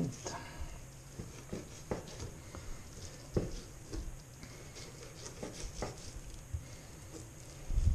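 Kitchen knife scraping and tapping against a cutting board as a zander fillet is skinned, in short irregular scrapes and small knocks, with a louder thump near the end.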